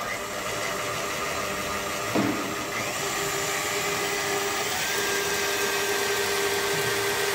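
Heavy-duty bowl-lift stand mixer switching on and running steadily at high speed, its wire whisk beating egg yolks in a stainless steel bowl: an even motor whine with a couple of constant tones.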